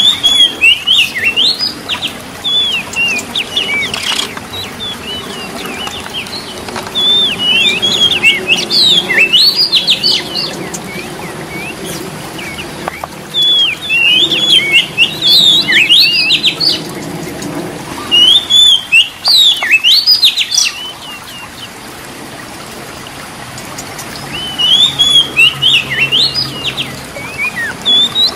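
Oriental magpie-robin singing: about five bursts of rapid, warbling whistled phrases, each a few seconds long, with short pauses between them.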